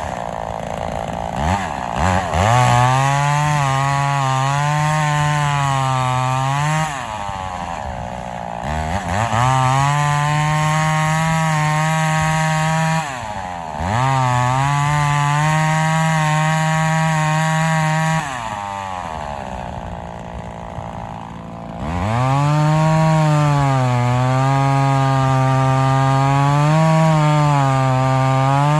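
Vintage Homelite XL-400 two-stroke chainsaw cutting oak: held at full throttle in four long runs of several seconds each, its pitch sagging and recovering as the chain bites, and falling back toward idle between runs.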